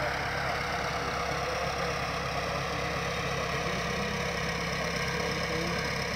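Massey Ferguson 375 tractor's diesel engine running steadily.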